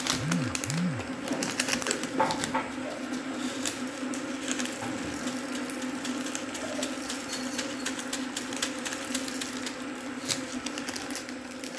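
Taro leaves and stalks being handled in a metal pot: light, irregular clicks and rustling over a steady low hum.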